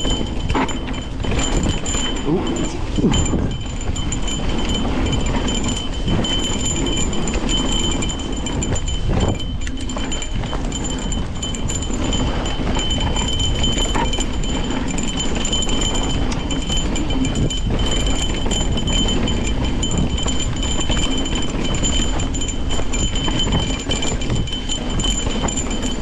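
Nukeproof Giga 297 mountain bike riding a rough dirt trail: a continuous rattle and rumble of tyres and bike over the ground, mixed with wind noise. A steady high whine sits above it.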